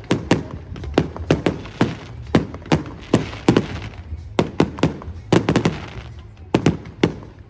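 Fireworks display: a rapid, irregular string of sharp bangs from bursting shells, about two to three a second, each trailing a short echo.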